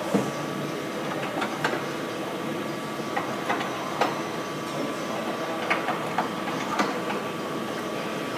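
A sheet welding machine running steadily with a faint constant whine, with irregular sharp clicks and knocks from its mechanism.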